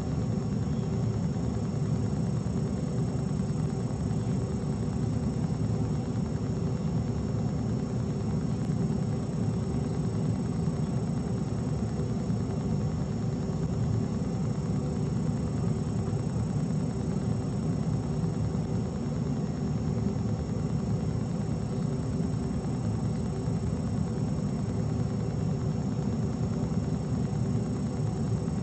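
Steady low rumbling hum with a few faint constant tones over it, unchanging throughout, with no distinct events.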